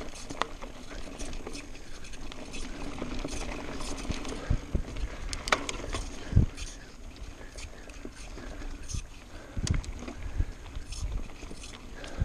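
Mountain bike running fast downhill on a dirt singletrack: steady tyre noise on the dirt, with frequent clicks and rattles from the bike over bumps and a couple of heavier thumps about six and ten seconds in.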